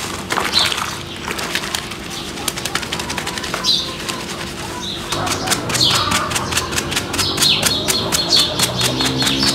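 Wet stuffed toy squelching and soapy water splashing as it is squeezed and wrung over a plastic basin, then a fast run of brush-scrubbing strokes in the second half. Birds call in the background.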